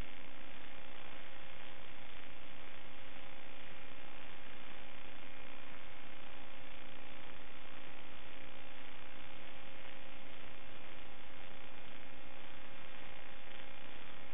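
Steady static hiss with a constant electrical hum. It does not change as the quadcopter manoeuvres, so it is noise on the analog FPV video link's audio as recorded by the DVR, not the sound of the motors.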